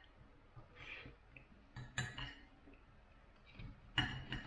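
Knife and fork clinking and scraping against a dinner plate while cutting meat: a few scattered sharp taps, with a quick run of them near the end.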